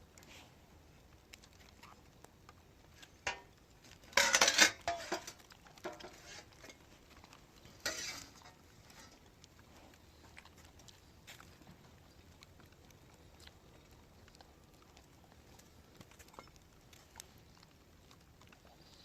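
Clattering scrapes of hard objects knocking together: a loud burst about four seconds in, a shorter one about eight seconds in, and scattered faint clicks between them.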